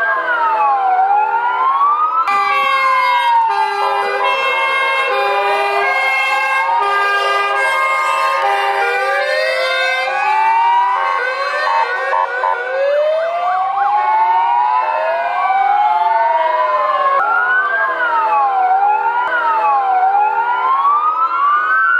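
Fire engine sirens wailing, several rising and falling pitches overlapping. From about two to ten seconds in, steady tones take over, switching back and forth between pitches.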